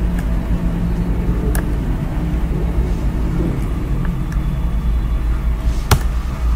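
Steady low background rumble, with a faint click about a second and a half in and a sharp click near the end, typical of keyboard and mouse use while code is selected and deleted in an editor.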